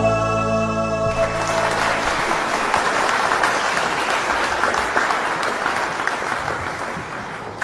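A held music chord ends about a second in, and an audience's applause takes over, slowly fading toward the end.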